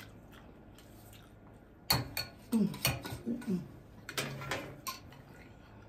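Eating utensils clinking and scraping against a dish while noodles are picked up, a quick run of clinks starting about two seconds in and lasting about three seconds.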